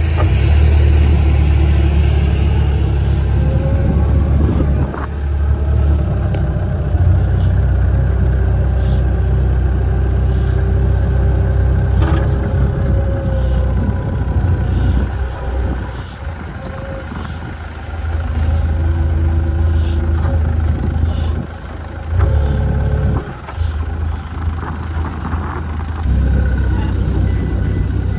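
Forklift engine running, heard from inside the cab: a loud, steady low rumble that rises and falls as the truck is driven about, dipping briefly a few times.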